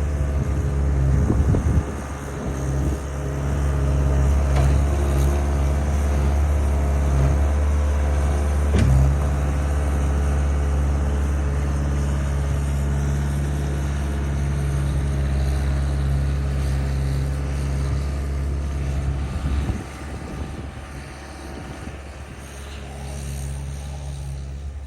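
Skid steer engine running steadily under load, with a couple of sharp knocks, then dropping to a quieter idle about twenty seconds in.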